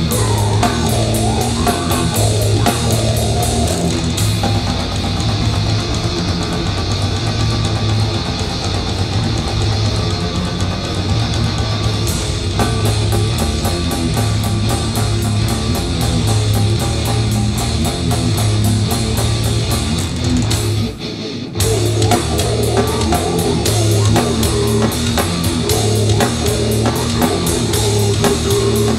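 Grindcore band playing live: heavily distorted guitars and bass over fast, dense drumming, with a brief break about three-quarters of the way through before the full band comes back in.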